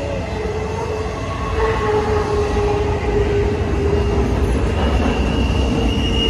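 Empty intermodal well cars rolling past on the rails: a heavy low rumble of wheels on track, with steady wheel squeal over it and a higher-pitched squeal joining near the end.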